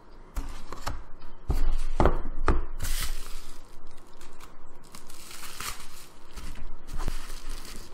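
A padded paper mailer envelope being torn open by hand, the paper crinkling and rustling, with a few sharp knocks of handling in the first three seconds.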